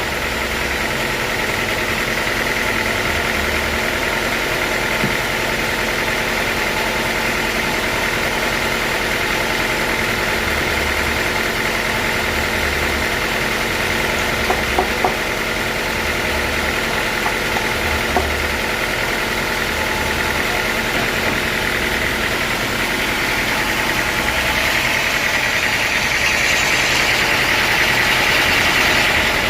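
Sawmill saw machinery running steadily with a constant whine, a few light knocks about halfway through, growing louder and brighter near the end.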